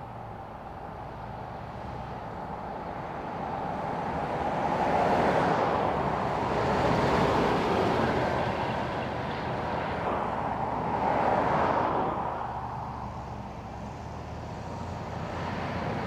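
Trucks and a ute driving past on a highway, tyre and engine noise swelling and fading as each goes by. The passes are loudest about five, seven and eleven seconds in, and another vehicle comes up near the end.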